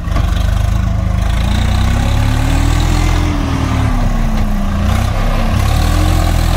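Heavy diesel engine running under load, its pitch rising over the first three seconds, dropping back, then climbing again near the end as it is revved and eased off.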